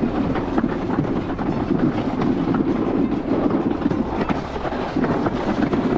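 Alpine slide sled running down the concrete track: a steady rolling rumble with many quick clicks over the track.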